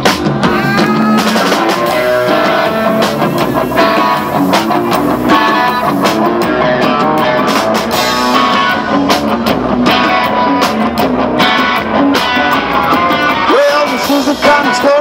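Live rock and roll band playing loud: electric guitar over upright bass and a drum kit.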